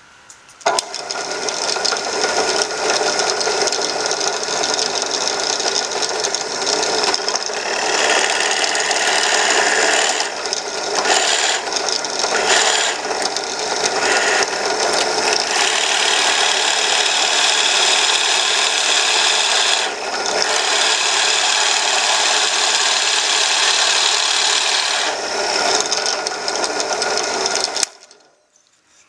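Drill press running with a Forstner bit boring into a teak hammer head: a loud, steady cutting and grinding noise with several short dips partway through. It cuts off suddenly near the end.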